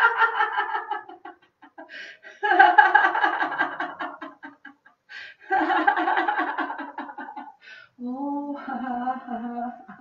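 A woman laughing out loud in several bouts of rapid ha-ha pulses, each trailing off, the last one lower-pitched. It is the deliberate laughter of a laughter yoga exercise.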